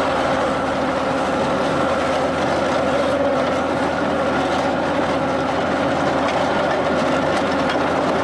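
Heavy forestry machinery running steadily: engine and machine noise with a constant high whine.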